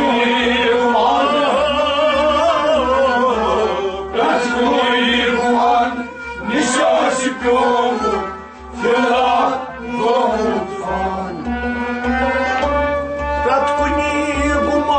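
Kashmiri Sufi music: a harmonium sounding held reed chords and melody, with a few hand-drum strokes and a voice singing long wavering melodic lines over it.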